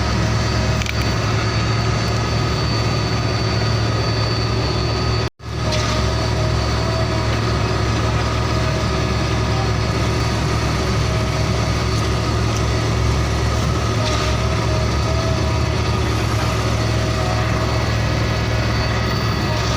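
A large truck engine idling steadily, with a brief cut in the sound about five seconds in.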